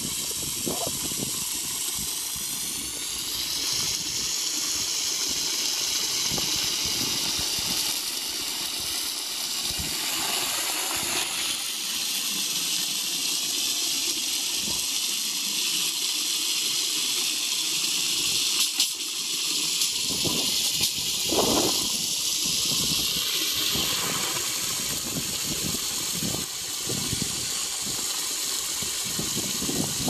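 Water spraying from a garden hose nozzle into a plastic tub, a steady hissing splash, with a few brief louder sounds in the second half.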